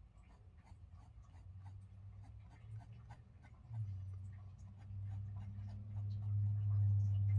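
Derwent Drawing Pencil scratching over drawing paper in quick short shading strokes. A low steady hum comes in about halfway and grows louder, drowning out the pencil.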